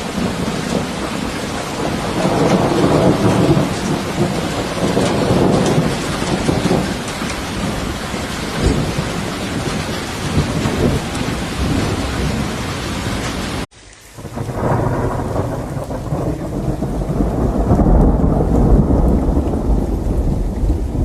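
Thunderstorm: steady rain with rolling thunder swelling and fading beneath it. About fourteen seconds in the sound cuts out abruptly for a moment, then returns duller, with less hiss and a deeper rumble.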